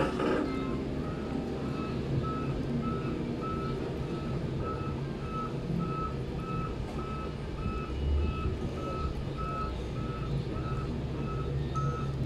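Vehicle reversing alarm beeping steadily at one pitch, a little under two beeps a second, over a low steady rumble.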